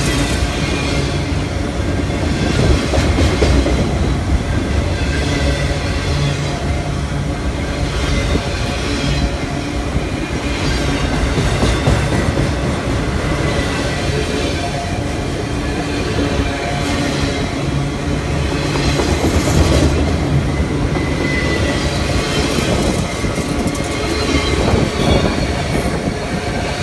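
Freight train cars rolling past close by: a loud, steady rumble and rattle of steel wheels on the rails, with clickety-clack over the rail joints.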